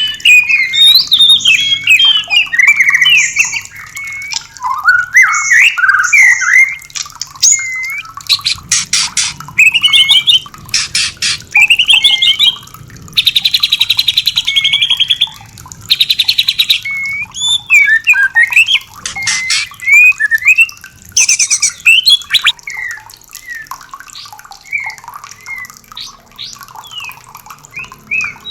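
White-rumped shama song: rich, varied whistled phrases that glide up and down, broken several times by fast, dry rattling trills.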